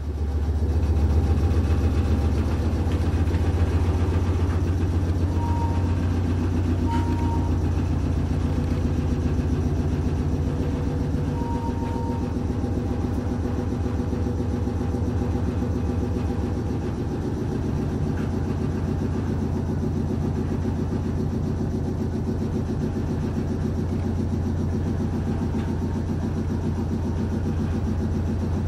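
Steady low hum and rumble of an old electric train, heard from inside the passenger car.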